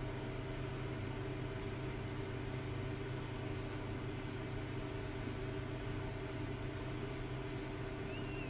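Microwave oven running with a steady low hum.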